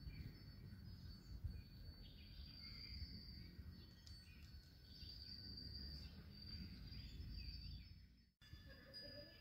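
Faint outdoor ambience: a steady high insect drone with scattered bird chirps over a low rumble, cutting out for a moment near the end.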